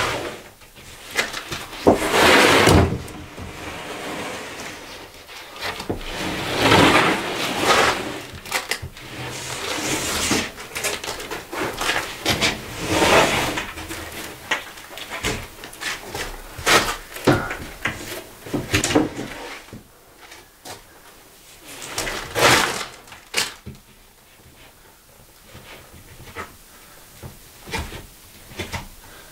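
OSB sheets being slid off a stack and handled: several scraping slides of board over board, with knocks and thumps in between as the sheets are lifted and stood against a wall.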